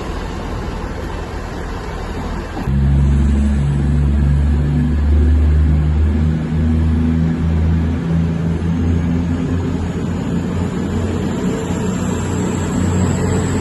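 Diesel train engine opening up about three seconds in, then running with a deep steady drone; a faint high whine rises near the end.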